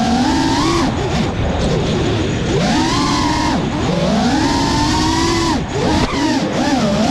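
FPV quadcopter's electric motors whining over a steady rush of air, the pitch swinging up and down several times with the throttle. The whine drops out for a moment about a second in, then returns.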